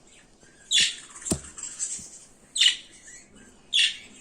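Birds calling: three short, harsh, high-pitched calls spaced a second or two apart over faint high chatter, with a single sharp click between the first two.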